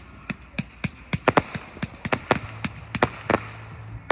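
Ground-fired fireworks cake shooting a rapid, irregular string of sharp pops, about four a second, as its tubes launch comets and stars.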